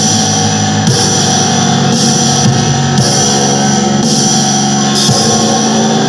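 Funeral doom metal music: a loud, dense, droning wall of sustained chords whose low notes shift slowly.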